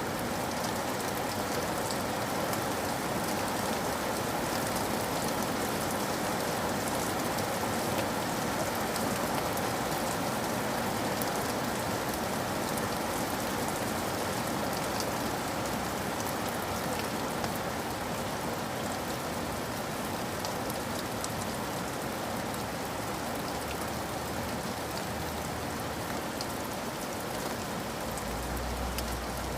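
Steady rain falling, a dense even hiss with fine scattered drop ticks. A low rumble builds up underneath near the end.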